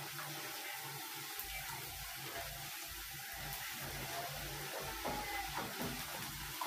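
Chopped onions sizzling in hot oil in a frying pan: a steady hiss with a few faint clicks.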